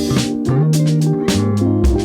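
Background music: a groove with plucked guitar, bass guitar and a steady drum beat.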